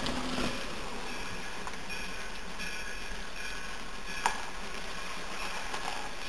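Distant steam-hauled train approaching: a steady faint rumble with short, high squealing tones that come and go, and one sharp click about four seconds in.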